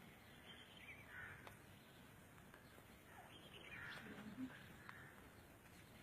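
Faint bird calls over near silence, in two short spells: about a second in and again between three and four seconds.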